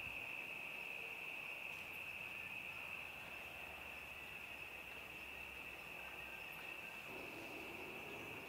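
Faint, steady high-pitched trill of an insect chorus, crickets at dusk. A low hum joins about seven seconds in.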